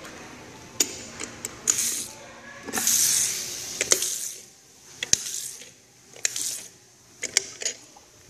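Sink faucet running, water splashing into the basin in several hissing spurts, with sharp clicks in between.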